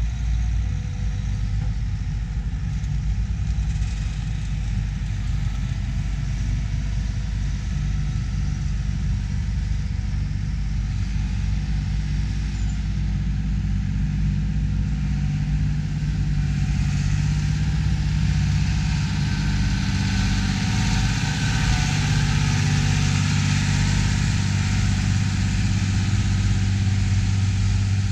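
Diesel farm tractor engines running steadily, growing louder about halfway through as a second tractor draws close.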